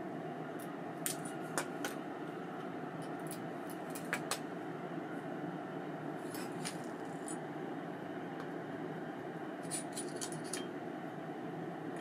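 Light metallic clicks and clinks from small parts of an ABU Ambassadeur 2500C baitcasting reel being handled. They come singly and in small clusters, some near the middle and a run near the end, over a steady low hiss.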